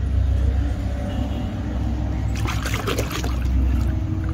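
Water splashing and sloshing as a hand swishes a toy around in a basin of muddy water, starting about halfway through. A steady low rumble underlies it.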